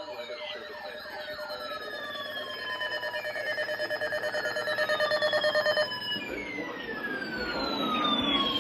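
Several sirens wailing together, their pitches sweeping down over and over and overlapping. A fast-pulsing steady tone joins them and cuts off about six seconds in, and the overall sound grows louder.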